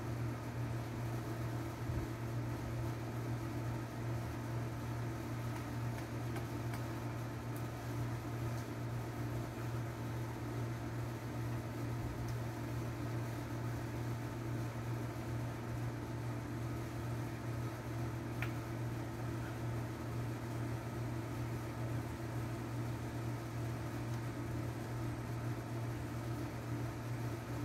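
A steady low machine hum that holds even throughout, with a faint click about two-thirds of the way in.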